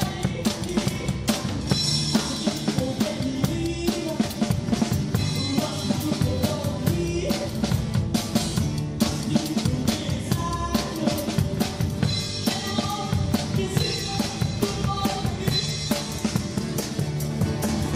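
Live band playing an instrumental passage with no singing, the drum kit loud and busy with snare, bass drum and cymbal strikes over guitar.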